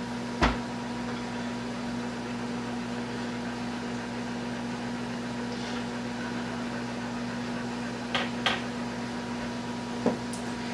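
A steady mechanical hum, like a small motor or fan running, with one sharp knock about half a second in and a few light clicks near the end as cheese slices are laid onto a griddle pan.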